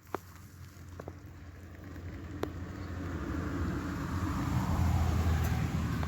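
A road vehicle passing, its noise building up to a peak about five seconds in and then easing off, over a few sharp clicks in the first couple of seconds.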